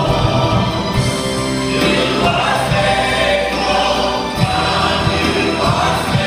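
Large church choir singing a gospel worship song over instrumental backing.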